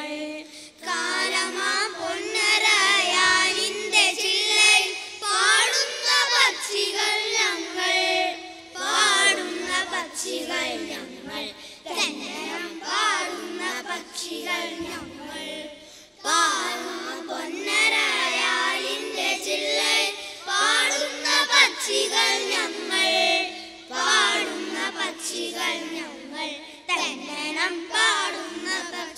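A group of young boys singing together in unison, in sung phrases with short breaks between them.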